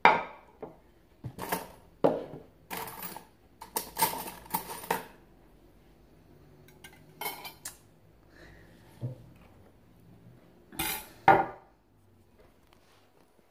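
Metal spoon clinking and scraping against a ceramic dinner plate while eating, in irregular bursts. The loudest clatter comes right at the start, a busier run follows a few seconds in, and another sharp pair comes near the end.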